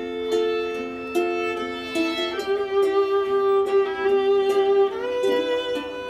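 Live violin playing a melody of held notes, with a small four-string guitar-like instrument plucked along underneath.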